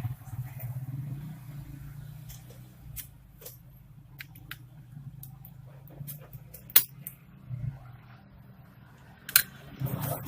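Scattered sharp clicks and taps from laptop parts being handled during disassembly, two of them loud, about seven and nine seconds in, over a low steady hum.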